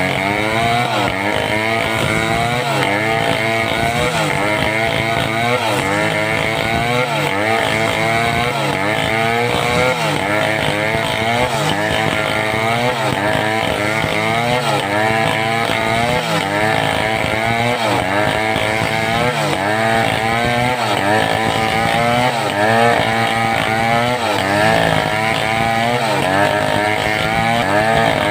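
Homemade two-stroke chainsaw running at high revs while cutting through wood, its engine pitch dipping and recovering about once a second as the chain bogs under load and picks up again.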